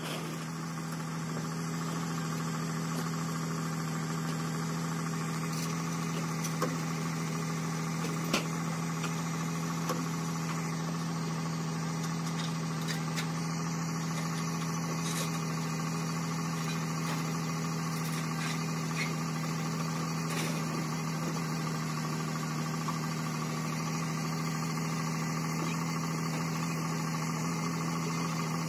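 Diesel engine of the recovery vehicle running at a steady speed as it drags the dead-tracked excavator out on a cable, with a couple of faint knocks partway through.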